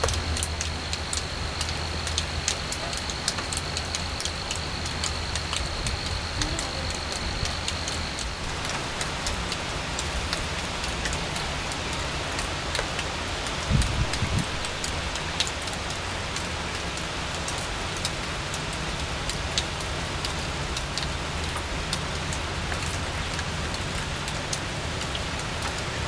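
Steady rain falling on garden leaves and a small pond, with many sharp ticks of drops landing close by. A low rumble runs underneath, a faint high steady whine stops about a third of the way in, and there is one brief low thump about halfway.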